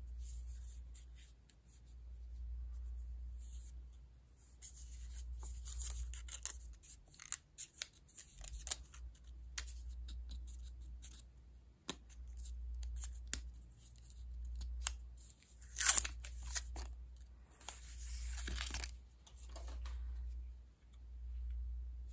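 Protective plastic film on a GoPro Hero 11 Black's screens being handled and peeled, with crackly tearing noises and scattered sharp plastic clicks and taps over low handling rumble.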